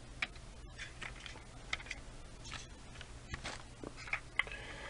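Light, irregular clicks and taps of a plastic Lego model truck being handled and moved, its bricks and wheels knocking softly as it is set down.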